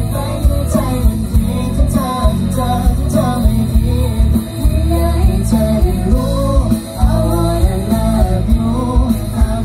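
Live band performing on an amplified stage: sung vocals over drums and bass guitar, with a regular beat.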